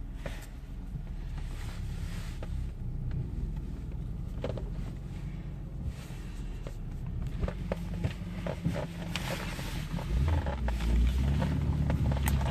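1995 BMW M3 E36 being driven, heard from inside the cabin: its straight-six engine and road noise make a steady low rumble, with scattered knocks and rattles. The engine gets louder about ten seconds in.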